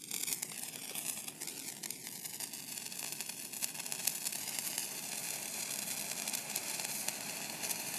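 Two hand-held phool chidiya sparkler sticks burning, a steady hissing sizzle with dense fine crackling from the sparks, growing a little louder as they burn.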